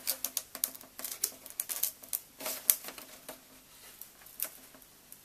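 Foam model-plane tailplane being pushed and worked into its slot in the fuselage: a quick, irregular run of light clicks and creaks for about three seconds, then a few isolated clicks.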